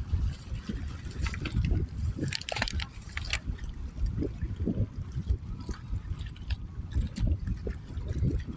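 Gusty wind rumbling on the microphone, with irregular trickling and splashing of water.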